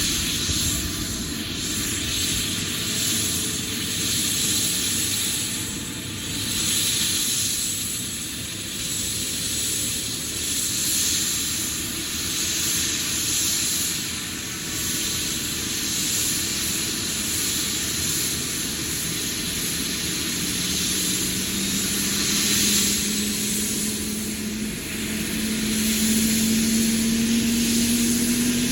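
Eurocopter EC145 helicopter's twin turboshaft engines and rotors running with a steady turbine hiss. Over the last third a whine rises slowly in pitch as the engines spool up.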